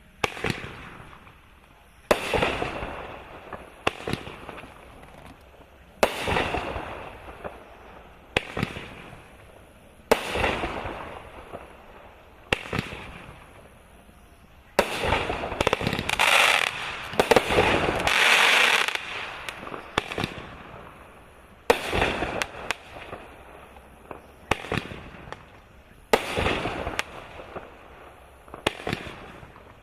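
Cannon Fireworks "Silent Killer" 17-shot 500-gram cake firing. Sharp shots come about every two seconds, each followed by a fading burst, with a faster volley of several shots in the middle.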